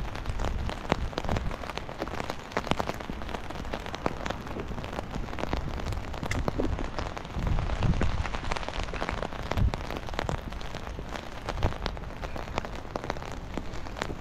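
Rain pattering on a taut fabric umbrella canopy just overhead: a dense, steady spatter of individual drop hits, with a few low thumps along the way.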